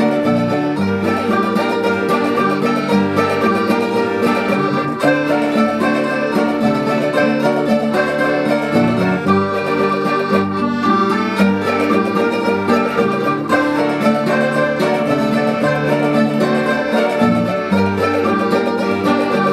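A folk string ensemble of mandolins and acoustic guitars with an accordion playing a janeiras tune, the mandolins in quick plucked notes over strummed guitar chords.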